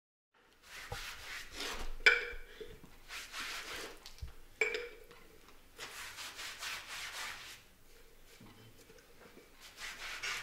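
Paintbrush dragged across canvas in several long, scratchy strokes, with the brush knocking twice against a glass paint jar, which rings briefly each time.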